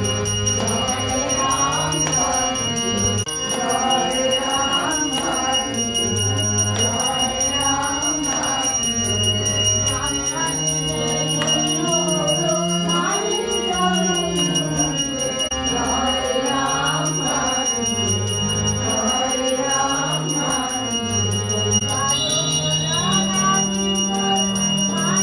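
Puja hand bell rung without pause during arati, its steady ringing tone carried over devotional music with a slow, stepping low melody.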